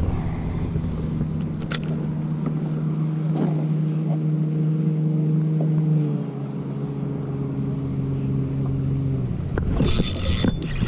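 A motorboat engine running with a steady hum that drops in pitch about six seconds in, as a passing boat does, and fades out near the end. A short burst of hiss follows.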